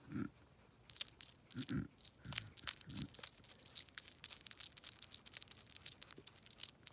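African pygmy hedgehog chewing its food: a fast run of small wet crunching and smacking clicks. A few soft thumps come in the first three seconds.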